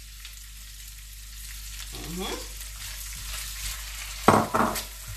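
Vegetables frying in a stainless-steel wok with a steady sizzle while being stirred with a spatula. Near the end, two loud scrapes or knocks of the spatula against the wok.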